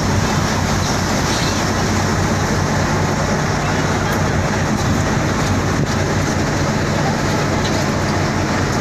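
Boat engine running with a steady low drone, under a constant rushing noise of wind and water.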